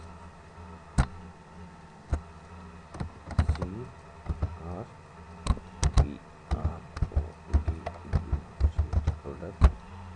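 Computer keyboard keys typed in irregular clicks: a few isolated keystrokes at first, then a quick run of typing through the second half.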